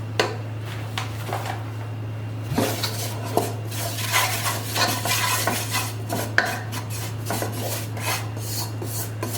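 A spoon stirring flour and butter in a pan to make a roux, with repeated scrapes and clinks against the pan, busier from about two and a half seconds in. A steady low hum runs underneath.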